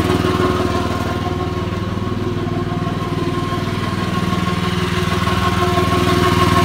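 Small recoil-start gasoline engine driving a skid-unit fire pump, running steadily with a thin steady high tone over the engine note, its hose pressure dumped.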